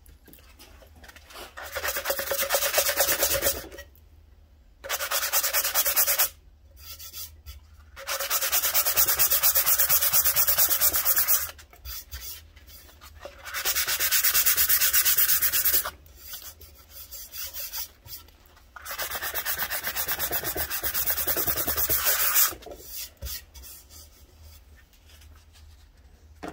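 Sanding sponge rubbed back and forth by hand over hardened brown CA glue filling knot holes in a wooden board, smoothing the fill flush. It comes in five bouts of a few seconds each, the middle one the longest, with short pauses between.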